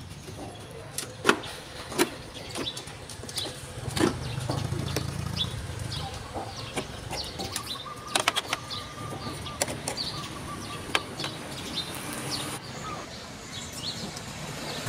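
Scattered plastic clicks and knocks from handling a Victor RC-X750 CD boombox, including a cluster of clicks as the CD lid is opened about eight seconds in. Birds chirp in the background, and a low rumble rises about four seconds in.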